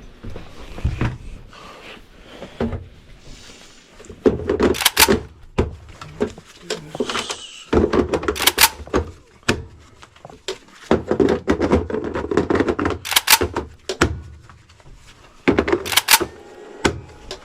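Tools and gear being handled and set down in a small room: a run of sharp knocks and clanks, several loud ones spread through, with shuffling and scraping between them.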